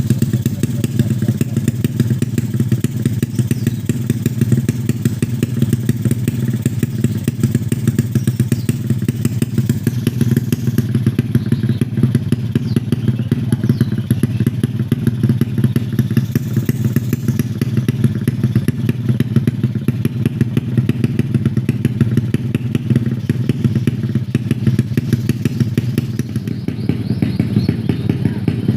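A 130cc-class drag bike's engine running steadily at a constant speed with a fast, even beat, not revved.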